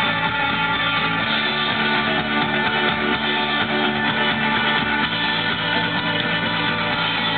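Indie rock band playing live, with strummed electric guitars over a full band in a steady, loud, continuous passage.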